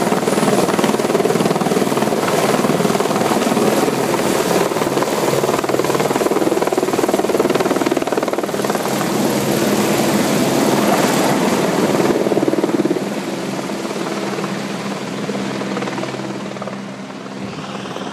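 Helicopter hovering with a slung water bucket, then lifting the filled bucket out of a quarry pond and climbing away, its rotor and turbine noise steady and loud. The sound weakens from about two-thirds of the way in and drops further near the end as the helicopter flies off.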